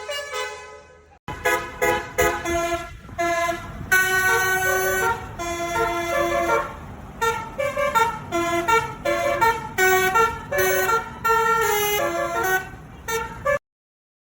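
Tourist bus's telolet basuri musical horn playing a tune of quick stepping notes over a low rumble. It breaks off abruptly near the end.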